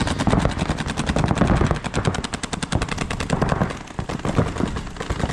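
Paintball markers firing in rapid, continuous streams: many sharp pops a second with no break.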